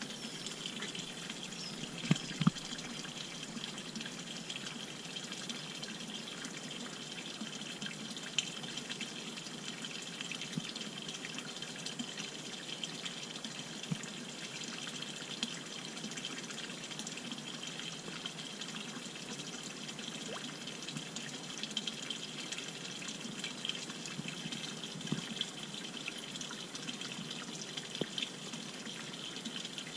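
Steady splashing of a thin stream of water falling from a pipe into a small fish pond. A few brief sharp clicks sound over it, the loudest about two seconds in.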